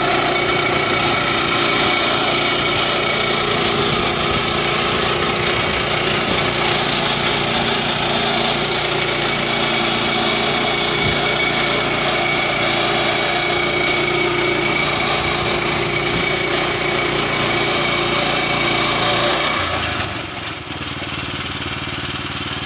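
Woodland Mills HM122 portable bandsaw mill running, its engine under steady load as the band blade cuts through a cedar log with a steady high hiss. About twenty seconds in the sound drops and the hiss stops, leaving the engine running more quietly.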